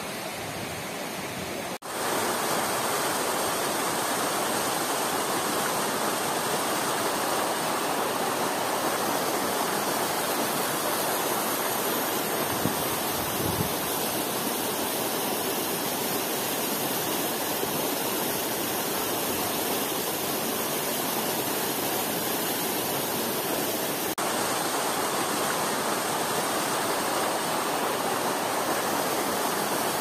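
Steady rush of the Artazul waterfall and the stream cascading over the limestone below it. The sound cuts out for an instant about two seconds in and comes back louder.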